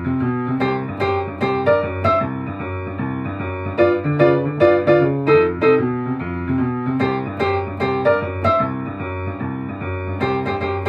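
Yamaha upright piano playing boogie woogie: a steady, repeating left-hand bass figure under rhythmic right-hand chords and licks.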